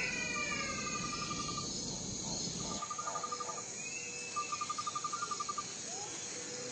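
Insects trilling in three short pulsed bursts, each about a second long at roughly ten pulses a second. A few falling whistled calls sound in the first second or so, over a steady background hiss.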